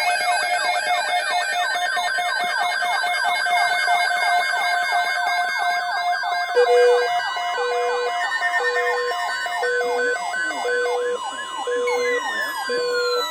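Several electronic siren sounds layered together: rapid falling yelps, about four a second, over steady held tones. About halfway through, a beeping tone starts, roughly once a second, and near the end the sirens begin to wind down, falling in pitch.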